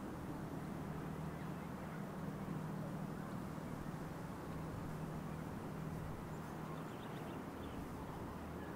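Outdoor background noise with a steady low hum throughout, and a few faint high chirps near the end.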